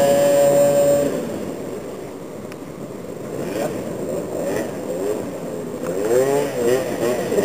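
Small moped-scooter engine held at a steady high note for about a second, then dropping off and running quieter. From about six seconds in it revs rapidly up and down as the rider works the throttle for a wheelie.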